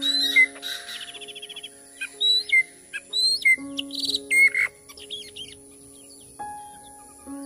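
A bird giving a rapid series of sharp, high-pitched calls with quick rises and falls and a fast trill, over sustained steady background tones; the calls thin out after about five seconds, leaving the steady tones.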